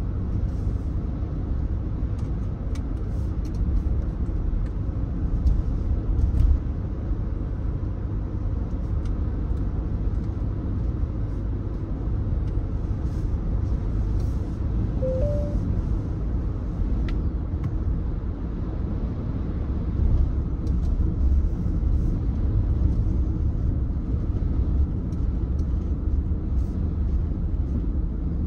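Steady low road and tyre rumble inside a moving car's cabin at cruising speed, with a brief two-note beep about halfway through.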